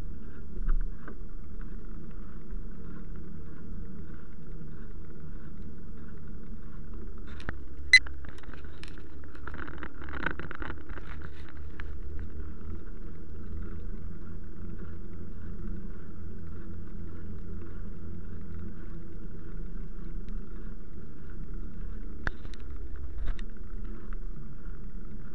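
Steady rolling noise of a ride along a wet tarmac path: a low rumble with a faint hiss above it. A sharp click comes about eight seconds in, and a couple of fainter clicks come near the end.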